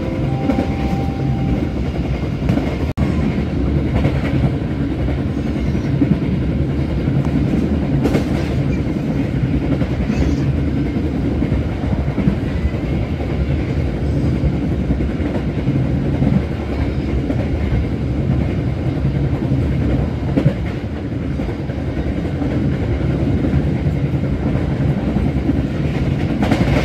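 Passenger train running at speed, heard from inside the carriage: a steady low rumble of wheels on the rails, with a few scattered knocks.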